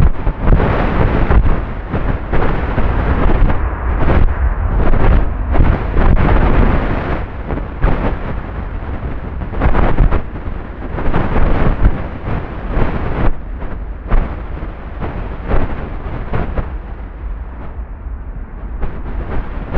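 Airbus A320-232's IAE V2500 jet engines running at high thrust close by: a loud, ragged rumble that pulses unevenly, dying down over the last few seconds as the aircraft moves away.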